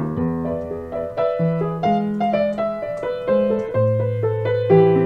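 Solo piano played by hand: a melody of struck notes over held bass notes that change every second or two, with a deeper bass note coming in about four seconds in.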